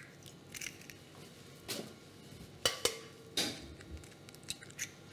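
Eggs being cracked against a bowl and dropped in: a handful of short, sharp knocks and clicks, with light clinks of bowl and utensils between them.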